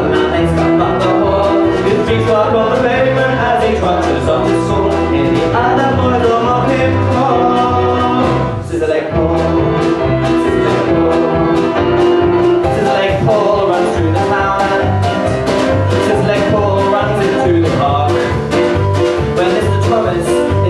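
A live band playing a song, with keyboard, bass notes and a steady drum beat, and a singing voice. The music drops out for a moment about eight and a half seconds in.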